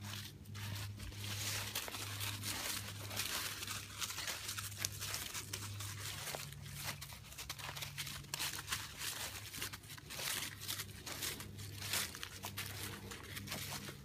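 Footsteps rustling and crunching through a thick layer of dry fallen leaves, an irregular crackle of many steps.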